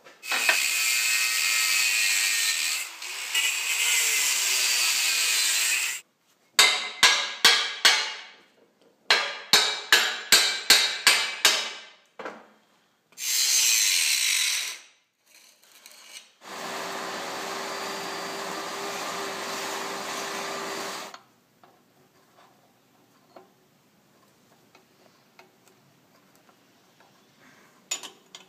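Hand and power tools on steel: a harsh rasping stretch, then two runs of sharp blows (about four, then six), another short burst of rasping, and a power tool running steadily for about four seconds before the work stops.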